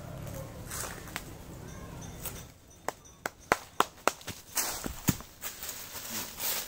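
A quick, uneven run of about eight sharp snaps and knocks over two and a half seconds, with softer rustling around them.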